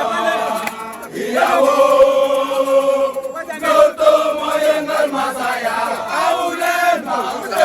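A crowd chanting together in long held notes that rise and fall, with short breaks about a second in and about three and a half seconds in.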